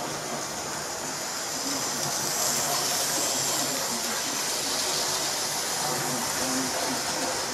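Model train running round its track, a steady whirr of motor and wheels on rails that grows a little louder for a few seconds as the train passes close by.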